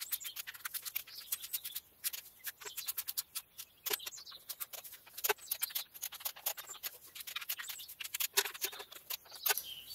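Ratchet of a torque wrench clicking in quick runs, with a few sharper single clicks, as the transmission sump bolts are tightened down to 10 Nm.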